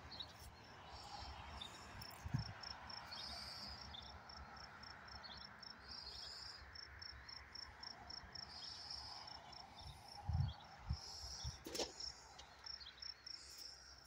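Crickets chirping in a faint, even pulse, with a few low thumps and a click near the end.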